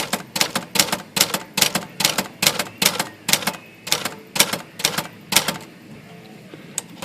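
Erika manual typewriter being typed on: a steady run of keystrokes, about three a second, the type bars snapping against the platen, then stopping. This is test typing to check the uppercase print after a shift adjustment.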